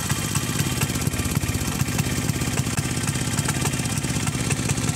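2004 Kinetic Honda scooter's small two-stroke engine idling, heard at the silencer outlet as a rapid, even putter of exhaust pulses. The idle has been set high because the engine misfires on throttle, which the mechanic puts down to a wrong fuel-air mixture.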